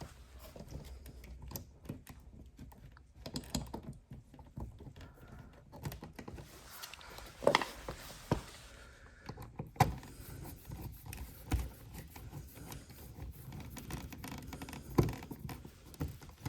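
A screwdriver working the bottom 2-inch mounting screw of a wall receptacle into its electrical box through a box extender: scattered small clicks, taps and knocks of metal on metal and plastic, with a few louder knocks.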